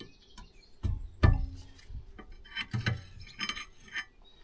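Clinks and knocks of metal brake parts being handled: two sharp knocks about a second in, then a run of lighter ringing clinks around three seconds in.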